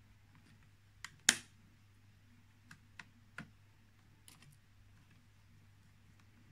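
Scattered sharp clicks and taps of a screwdriver and fingers on a small metal motor-controller enclosure as its screws are worked, about six in all, with the loudest, sharpest click about a second in.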